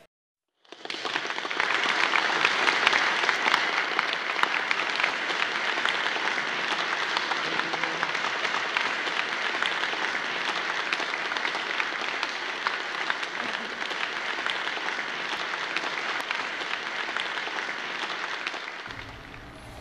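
Audience applauding, starting about a second in and dying down near the end.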